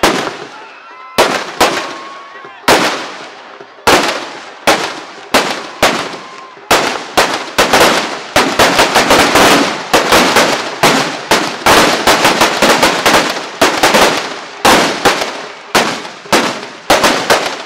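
Firecrackers packed inside burning Dussehra effigies going off. Sharp bangs come about one a second at first, then in a rapid string from about seven seconds in to about fourteen, then spaced out again.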